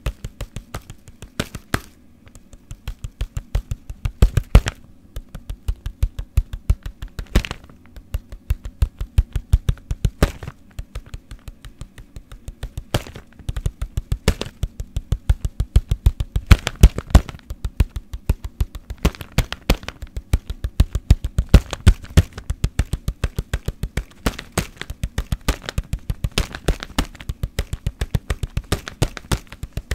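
Fast rhythmic tapping for ASMR on hard objects: runs of quick taps, several a second, many landing with a dull knock, with a few sparser stretches in between.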